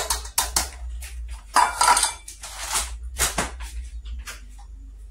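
Clatter of a plastic measuring cup and utensils against a metal mixing bowl as a cup of flour is tipped in: a run of knocks and short scrapes, loudest about two seconds in, stopping a little after four seconds.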